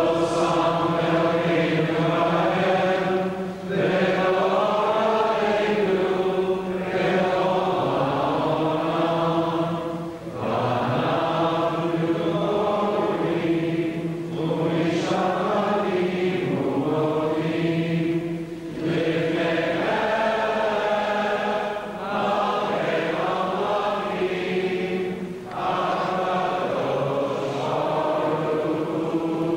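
Singing of a slow Jewish liturgical chant, in long held phrases of a few seconds each with short breaths between them.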